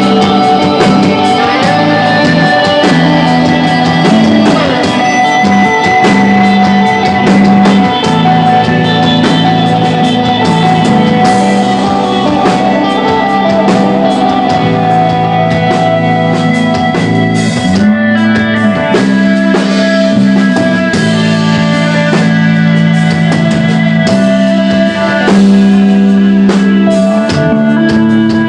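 Rock band playing live: electric guitar, bass and drums, with long held notes over a bass line that changes every second or two.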